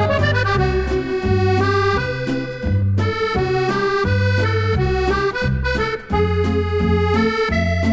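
Background music: an upbeat accordion-led tune over a steady bass.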